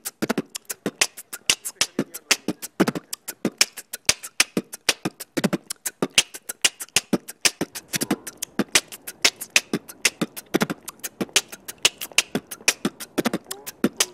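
Background music made of a fast, steady percussive beat of crisp clicking hits, about five a second, with a deeper hit every couple of seconds.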